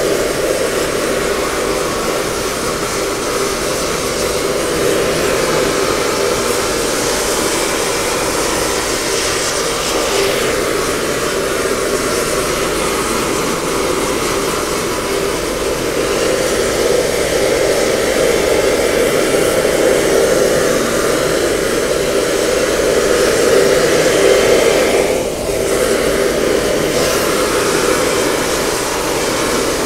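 Gas welding torch flame hissing steadily as it plays on a cracked bell, heating it to temperature for brazing the cracks with silver solder. The level dips briefly about 25 seconds in.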